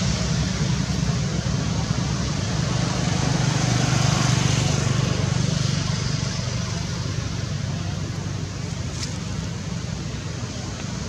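Steady outdoor background noise: a low rumble under an even hiss, with no distinct event standing out.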